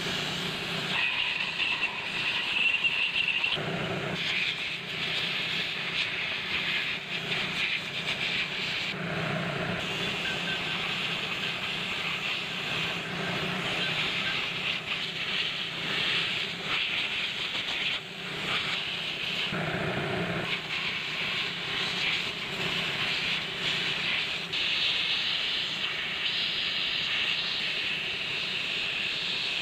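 Compressed air hissing steadily from a hose blown over aircon compressor parts, the cylinder block and a needle thrust bearing, with a lower hum that swells and fades several times.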